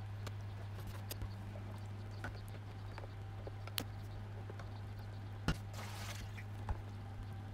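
Pot of lemon curd mixture heating on an electric hob: a steady low hum with scattered small ticks and pops, the clearest about four and five and a half seconds in.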